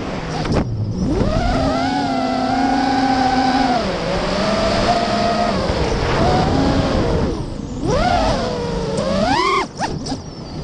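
Lumenier QAV-R racing quadcopter's brushless motors and propellers running on 6S LiPo power, heard from the onboard camera: a whine whose pitch rises and falls with the throttle. Near the end it drops and surges back twice as the throttle is cut and punched through loops.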